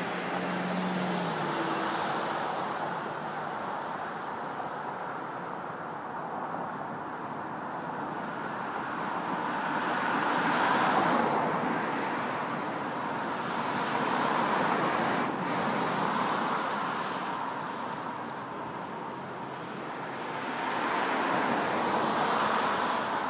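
Road traffic: several cars passing one after another, each one a swell of tyre and engine noise that rises and fades.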